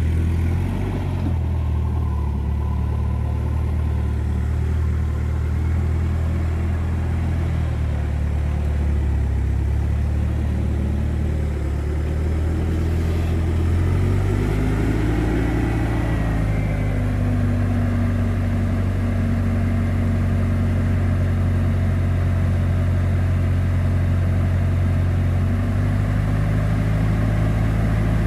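Old forklift's engine running steadily as it drives up and raises a Jeep's front wheel on its forks. The engine speed shifts about halfway through, with a brief rising and falling tone, and shifts again near the end.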